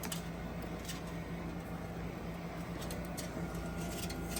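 Faint, scattered clicks of small PC cable connectors being handled and fitted, over a steady low hum.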